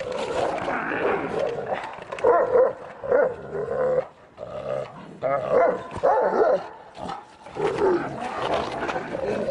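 Kangal shepherd dog barking and growling in short, loud bursts with brief pauses between them.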